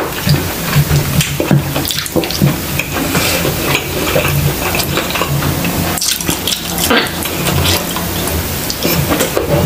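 Close-miked wet eating sounds: chewing with the mouth full, with fingers tearing apart soft, saucy chile relleno and baked tilapia, full of small wet clicks.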